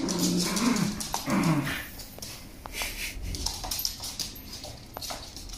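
Shiba Inu dog vocalizing: two short, low whining calls with wavering pitch in the first two seconds, followed by light scattered clicks of claws on the wooden floor.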